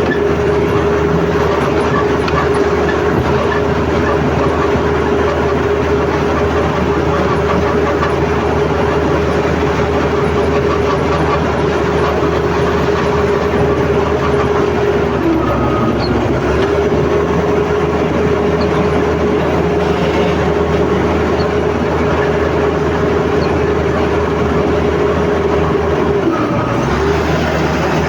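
Komatsu D85ESS crawler bulldozer working: the engine runs loud and steady with a constant whine over the clatter of its steel tracks. The whine drops in pitch briefly twice, about halfway through and again near the end.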